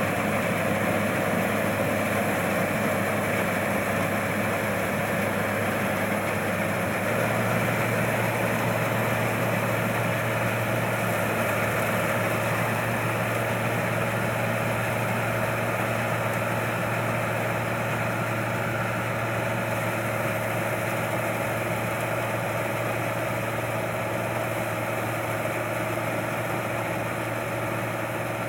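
Combine harvester engine running steadily, a continuous low hum with a slight change in pitch about seven seconds in.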